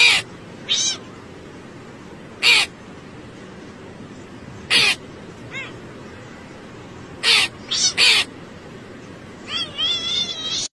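Hooded crow cawing: single harsh caws a couple of seconds apart, then three in quick succession, over a steady background hiss. Near the end comes a wavering, higher call.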